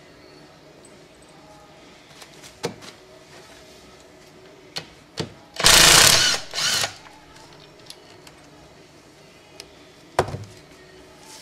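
A power tool runs in one short burst of a little over a second, in two pushes, about halfway through, likely spinning out a bolt on a transmission case. Sharp metal clanks and knocks of tools and parts come before and after it.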